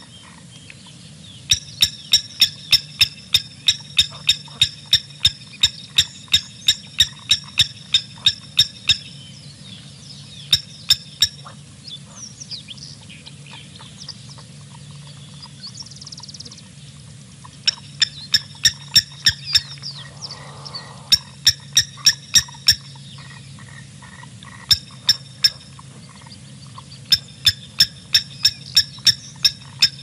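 An animal calling in a rapid series of sharp, ringing clicks, about three a second, in bouts of several seconds with short gaps between them, over a steady low hum.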